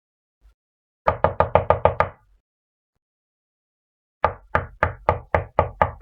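Loud knocking on a wooden door: a fast run of about seven knocks, a pause of about two seconds, then another run of about eight knocks, roughly four a second.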